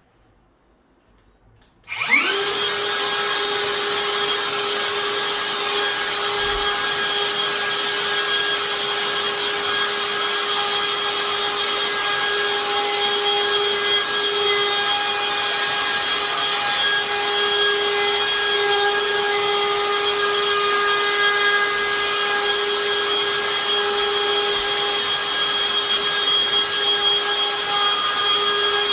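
Hikoki cordless router starting about two seconds in, spinning up quickly to a steady high-pitched whine and running on as it plunge-cuts a lock mortice into the edge of a wooden door with a shallow first cutter.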